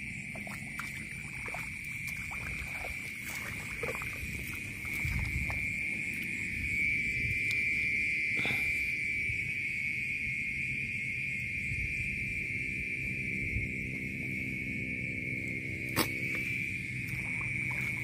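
Steady, shrill night chorus of insects and frogs, holding one unbroken pitch throughout, with a low rumbling underneath and a single sharp click about two seconds before the end.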